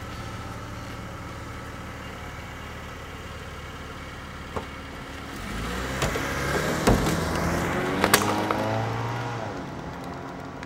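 Car engine running steadily, then getting louder and rising and falling in pitch as the car pulls away about halfway through. A few sharp knocks come in the louder stretch.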